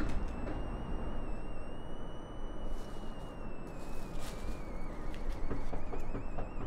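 Outdoor city background: a steady low rumble of distant traffic, with a thin high tone that slowly rises, falls and wavers near the end, and a few soft clicks.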